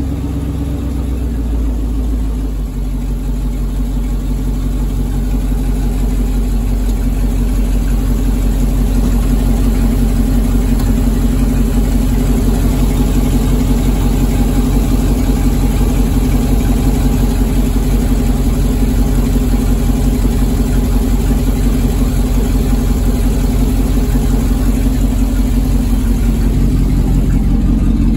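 2007 GM/Chevrolet heavy-duty 6.0L V8 gasoline engine idling steadily.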